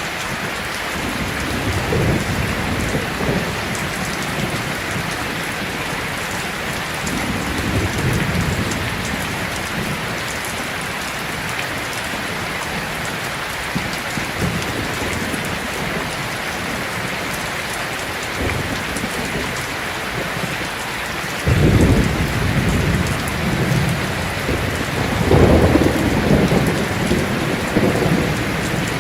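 Heavy rain falling steadily, with distant thunder rumbling low in the background. About three-quarters of the way through, a louder thunder peal breaks in suddenly and rolls on, swelling again before it fades.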